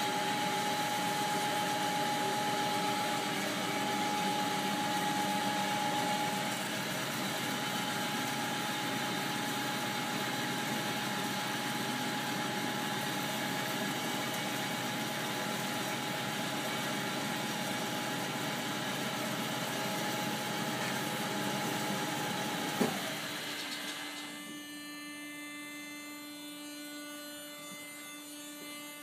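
Horizontal metal-cutting bandsaw running, a steady mechanical whine and hiss with a held tone. About 23 seconds in there is a click and the sound drops to a quieter, steady hum.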